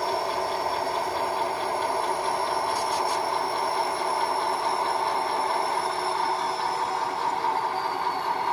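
Model diesel locomotive creeping along with a string of flatcars, its onboard sound playing a steady diesel engine run through a small speaker, with a thin high whine that sinks slightly near the end.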